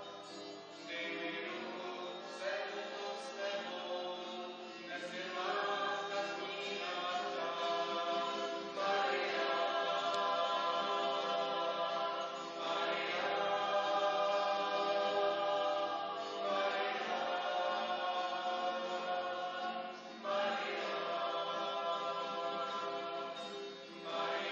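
A mixed group of adult and children's voices singing a Christmas carol together in unison, sustained sung lines with short breaths between phrases.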